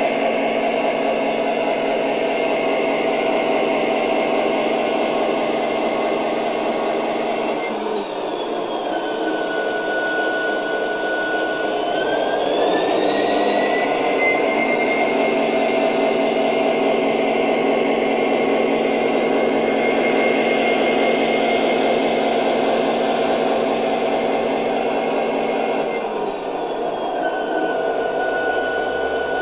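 MTH O-scale Kansas City Southern diesel locomotive model running on its track, its onboard sound system playing a diesel engine drone with a turbo whine. The engine sound drops about eight seconds in, revs back up a few seconds later, and drops again near the end.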